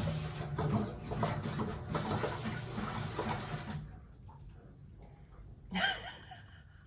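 Water rushing into a washing machine through its fill valve as the first cycle begins, then cutting off sharply about four seconds in. A short sound follows near the end.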